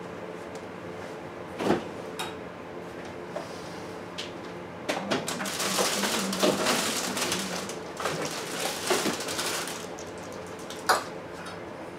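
A covered casserole dish being put into a refrigerator: a couple of knocks as it is handled, then several seconds of clattering and rustling as things are shifted on the fridge shelves, and a sharp click near the end.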